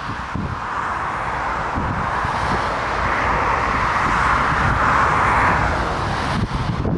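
Jet engines of a Boeing 737 airliner on approach, a steady rushing hiss that swells to its loudest about five seconds in. Gusty storm wind buffets the microphone underneath.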